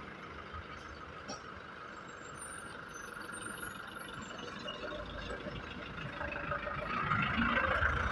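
Outdoor town ambience with a motor vehicle's engine running at a distance, growing louder over the last few seconds, and faint high chirps in the first half.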